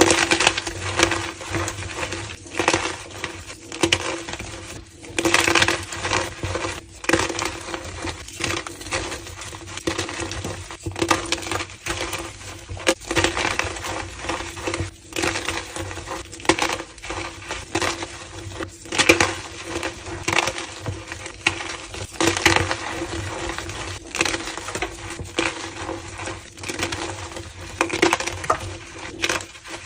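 Homemade gym chalk slabs being crushed: dense, irregular crumbling and crunching with sharp squeaky crackles, going on throughout.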